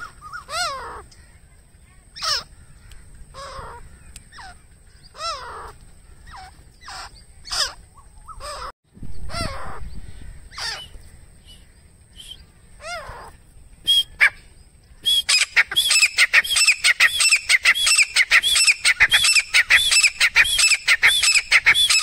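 Grey francolin calling: scattered single calls at first, then about two-thirds of the way in a loud, rapid run of evenly repeated notes, the bird's full territorial call series.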